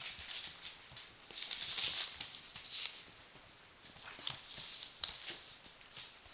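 Newspaper rustling and crinkling under a Border Collie puppy's paws as it scrambles and tugs at a plush toy, louder in two bursts, about a second in and again past four seconds, with scattered small taps and clicks.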